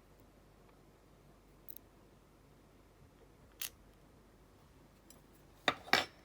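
A few sharp small clicks from handling padlock parts and pins: a faint tick about a second and a half in, another near the middle, and two louder clicks in quick succession near the end.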